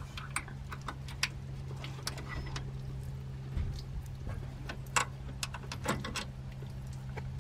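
Small metal hardware clicking and tapping as hood-lift bracket parts, bolts and washers are handled and fitted by hand on the fender. The clicks come irregularly, the sharpest about five seconds in, over a steady low hum.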